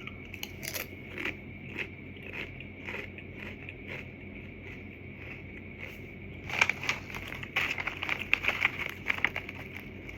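Crunching on crisp chicken barbecue flavoured Kob Kob chips: a few sharp crunches about every half second, then a quieter stretch, and a denser, louder run of crackling crunches from about six and a half seconds in.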